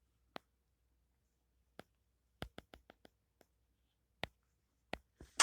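About a dozen sharp, separate clicks at irregular intervals, several coming in quick succession around the middle, with silence between them.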